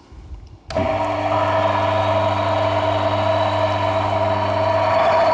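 Electric drive motor of a Brugger-type lubricant wear-test machine switched on about a second in and running steadily, turning the test bearing in its oil bath: a deep hum with a steady mid-pitched whine.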